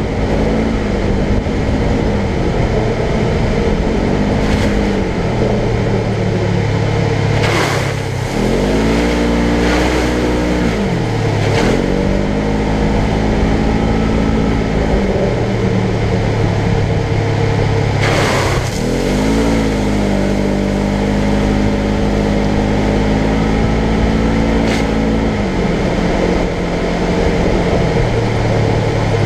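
Polaris General XP 1000 side-by-side's twin-cylinder engine under way on a dirt trail. Its note climbs and holds on the throttle, then drops off as it slows. This happens twice, about a third of the way in and again past the middle, with a few short knocks along the way.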